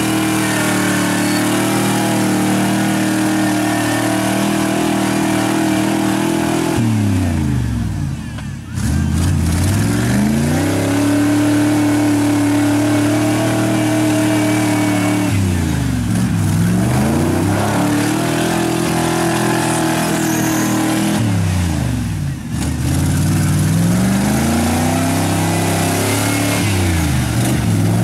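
1990s Ford F-series pickup's engine revving hard as the truck pushes through deep mud, the revs falling away and climbing back about four times.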